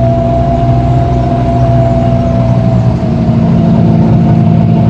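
Car engine and road noise heard from inside a moving car: a loud, steady hum with no breaks.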